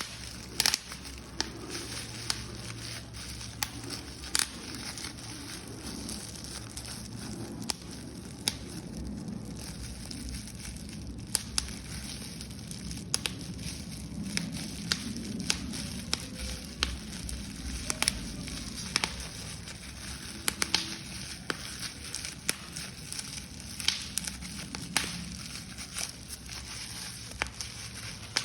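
Paper being crumpled and crushed by hand: irregular sharp crackles and crinkling, with the odd tearing sound.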